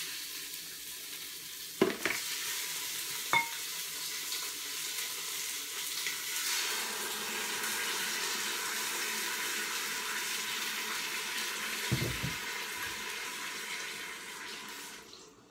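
Chicken and sauce sizzling in the hot, oiled inner pot of an Instant Pot: a steady hiss that cuts off suddenly near the end. Two sharp clicks come about two and three seconds in, and a dull thump about twelve seconds in.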